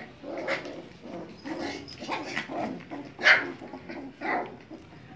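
Puppies play-fighting, giving a run of about five short yips and barks, the loudest about three seconds in.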